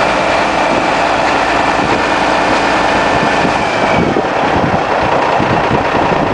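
Caterpillar 977K crawler loader's diesel engine running loudly, with a faint steady high whine that fades about four seconds in, followed by irregular low knocks.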